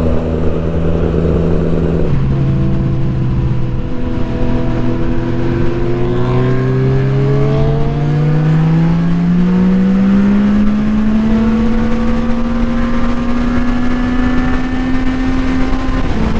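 Motorcycle engine running under way. Its pitch drops in a step about two seconds in, then climbs slowly from about six to ten seconds in as it accelerates, and holds there.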